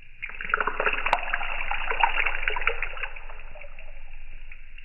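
A vibrating tuning fork's tines touching the surface of a bowl of water, making a dense crackling splatter as the water is flicked into droplets. It starts about a quarter second in, is loudest for the first three seconds, then dies away.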